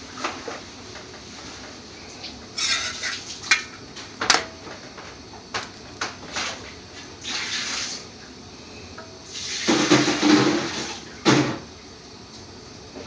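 Metal spatula clinking and scraping against a flat tawa griddle as a paratha is worked on it, in scattered clacks and short scrapes. A longer, louder scraping clatter comes about ten seconds in.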